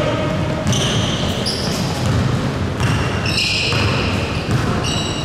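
Basketball game play on a gym floor: the ball bouncing and several short, high-pitched sneaker squeaks over the steady noise of the hall.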